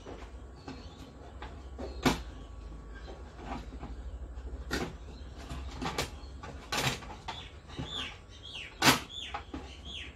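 Hard plastic knocks and clicks as a long plastic trim piece is laid on the back of a flat-screen TV and pressed into place, a few sharp strikes spread out with the loudest near the start and near the end. Short falling bird chirps come in over the last few seconds.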